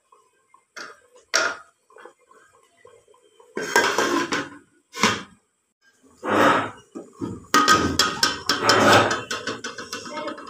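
Clatter from an aluminium cooking pot of boiling dal: a few light knocks, then irregular bursts of knocking and rattling that grow busiest in the last few seconds.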